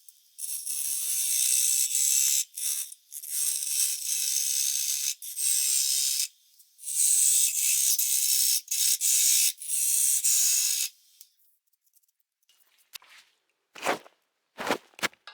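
Bowl gouge cutting into wet maple spinning on a wood lathe, a hissing scrape of shavings peeling off in a run of passes, each a second or two long. The cutting stops about eleven seconds in, leaving a few small clicks near the end.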